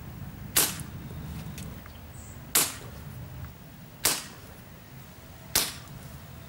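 Weihrauch HW40 (Beeman P3) 5.5 mm air pistol fired four times, about one and a half to two seconds apart: four sharp cracks, each with a short ring.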